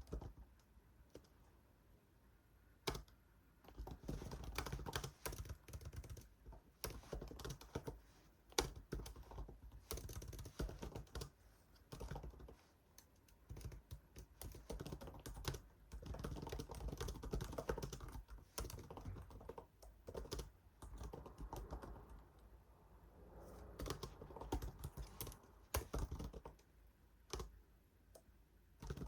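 Typing on a computer keyboard in bursts of rapid key clicks, broken by short pauses.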